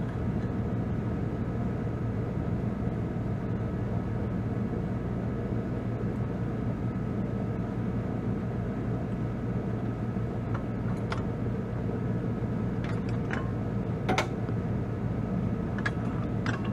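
Kubota B2650's three-cylinder diesel engine idling steadily, with a few light metal clinks from about two-thirds of the way in as the 3-point hitch lift arm and its pins are handled.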